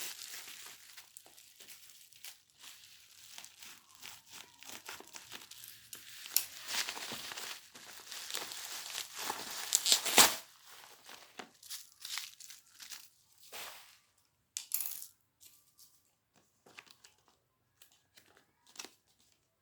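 Packaging being handled and opened: crinkling, rustling and tearing with irregular clicks, loudest about ten seconds in, thinning out to a few scattered taps and clicks in the last few seconds.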